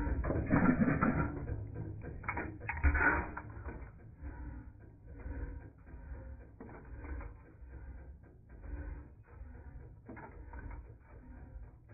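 Valve gear of an air-cooled Domestic hit-and-miss gas engine clacking and clicking as the rocker arm and push rod work, heard slowed down in slow-motion playback. A run of irregular mechanical clicks over a low rumble, loudest in the first few seconds.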